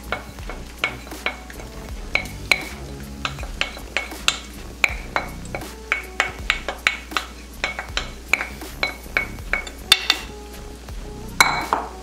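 Wooden spoon knocking and scraping against a ceramic bowl as marinade is scraped out into a frying pan: a quick run of sharp clinks, two or three a second, each with a short ring, and one louder scrape near the end.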